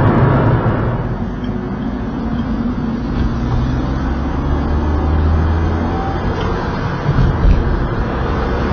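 Steady drone of a car's engine and tyres at motorway speed, heard from inside the cabin, with a low hum that grows stronger about halfway through.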